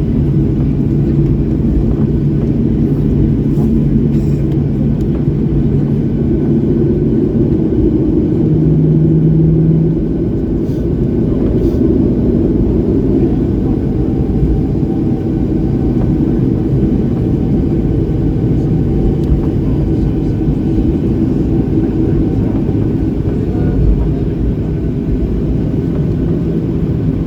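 Inside the cabin of a Boeing 737-800 taxiing after landing: a steady low rumble of the engines at idle. A low hum eases off about ten seconds in.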